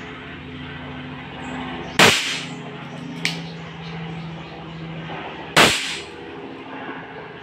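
ASG Dan Wesson 715 CO2 airsoft revolver firing two shots about three and a half seconds apart, with a fainter sharp crack between them.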